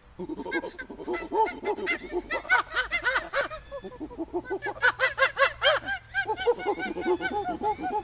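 A monkey's rapid squeaky calls: a fast, continuous run of short rising-and-falling squeaks, several a second, starting suddenly.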